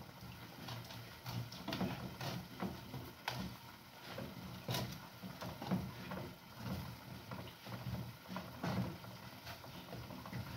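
Wooden cooking stick (mwiko) pressing and turning a mound of ugali against the sides of an aluminium pot to shape it round: irregular soft knocks and thuds.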